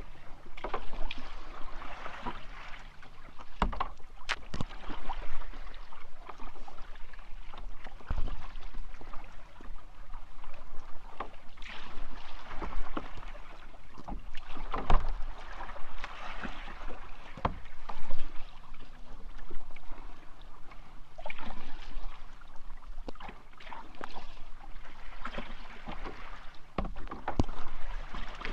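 Kayak paddle strokes splashing in the water, one swell after another every second or two, with a few sharp knocks now and then.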